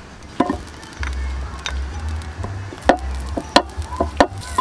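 Metal teaspoons clinking against a dish while ground-pork meatball mixture is scooped and shaped, about five sharp clinks a second or so apart, over a low rumble that comes in about a second in.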